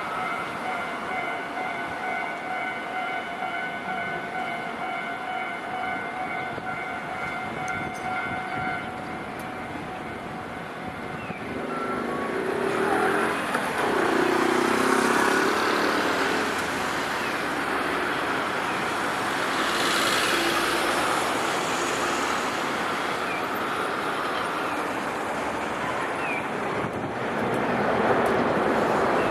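Japanese level crossing warning bell ringing steadily, then stopping about nine seconds in. From about twelve seconds in, cars and other road traffic drive over the reopened crossing, louder than the bell.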